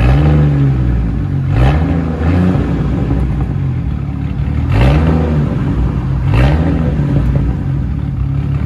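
2002 GMC Envoy's six-cylinder engine revved through a straight-piped exhaust, with its muffler and resonator deleted and only a high-flow catalytic converter left. It is blipped up and falls back about five times.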